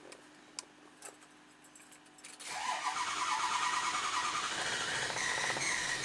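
A couple of faint clicks, then about two and a half seconds in the starter begins cranking a Ford 6.0L Powerstroke V8 diesel. It turns over slowly at about 275 rpm and tries to start but does not catch. The engine is short of high-pressure oil: injection control pressure is near 590 psi against about 1,500 psi desired, with the IPR maxed out. The battery voltage is low.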